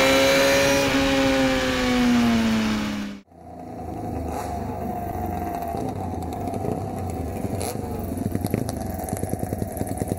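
Motorcycle engine heard from on board at road speed, its pitch falling as the throttle is rolled off; it cuts off abruptly about three seconds in. Then vintage motorcycle engines run across cobblestones with a rapid pulsing exhaust beat that grows busier near the end.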